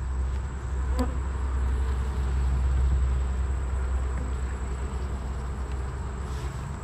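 Honeybees buzzing steadily around an open Langstroth hive, over a low steady rumble, with a single sharp click about a second in.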